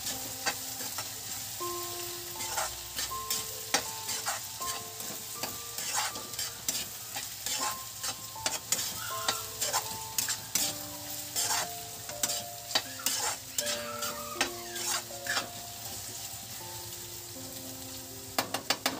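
A metal spoon stirs okra and potatoes frying in a steel kadhai: the food sizzles steadily while the spoon scrapes and clicks against the pan again and again. A soft melody of held notes plays underneath.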